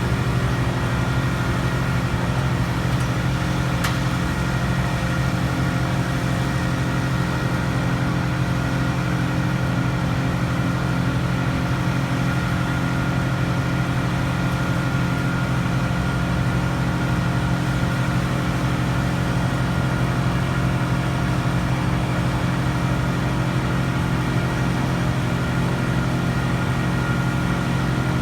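Engine running steadily at one constant speed, with no revving or change throughout.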